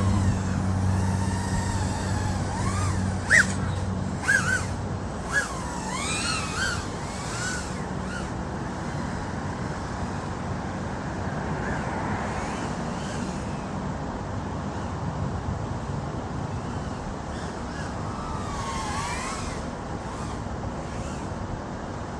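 Micro FPV quadcopter's tiny 14,000KV brushless motors whining in flight, the pitch sweeping up and down with throttle a few seconds in and again near the end, over a steady hiss.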